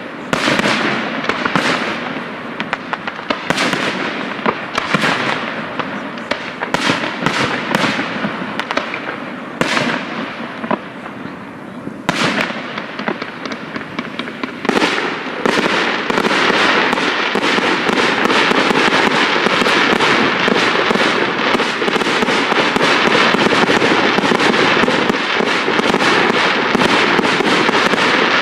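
Aerial firework shells bursting one after another at irregular intervals. About halfway through they give way to a dense, continuous rapid-fire barrage that is louder.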